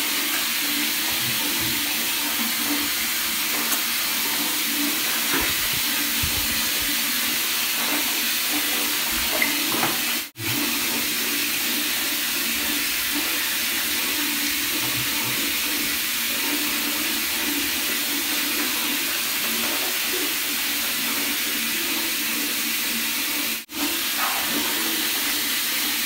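Water running steadily from a tap into a bathtub, an even hiss that cuts out twice for a split second.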